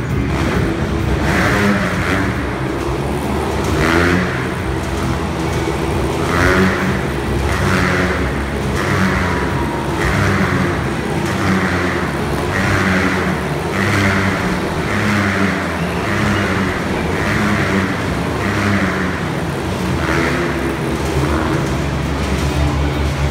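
Motorcycle engines revving continuously as the bikes ride inside a steel-mesh globe of death. The sound swells and fades about once a second as they loop around the sphere.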